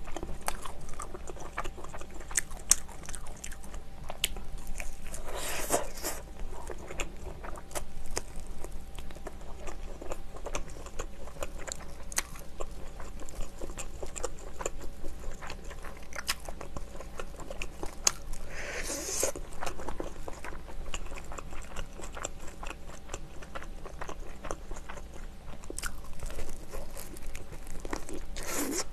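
Close-miked eating of seasoned fried chicken: bites and crunches into the coated meat, chewing, and small wet mouth clicks throughout, with a few louder crunches along the way.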